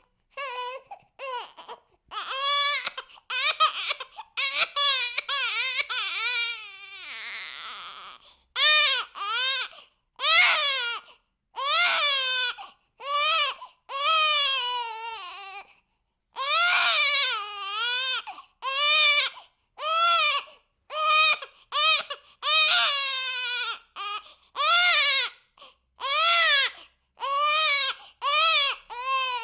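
Infant crying hard in a long string of high-pitched wails, each about half a second to a second, broken by short gasps for breath. The voice turns hoarse and raspy for a couple of seconds about seven seconds in.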